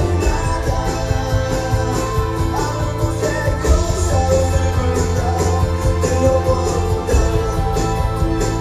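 Rock song with guitar, a steady beat and a singing voice.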